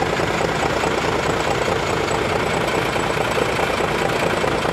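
Intercity bus engine idling steadily, heard right at its chrome twin-tip exhaust outlet. The note is aggressive and racing-like.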